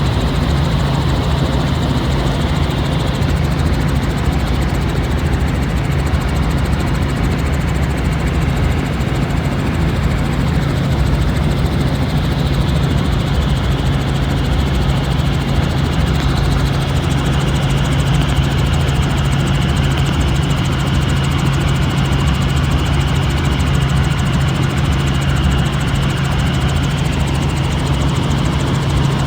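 Helicopter running steadily: a constant low drone of engine and rotor with a rushing noise over it, unchanging throughout.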